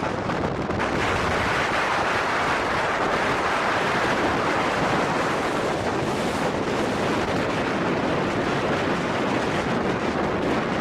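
Blizzard wind rushing steadily, buffeting the microphone.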